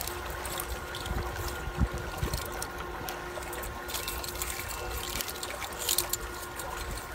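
Water trickling and a nylon fishing net rustling as the net is paid out by hand into the lake. A faint steady hum runs beneath, and brief crackly rustles stand out about four and six seconds in.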